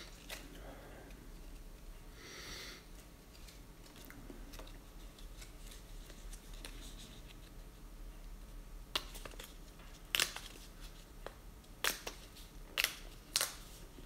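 A small paper-and-card packet of Papier d'Arménie incense paper being handled and turned in the fingers: soft rustling near the start, then a run of sharp paper clicks and snaps in the second half.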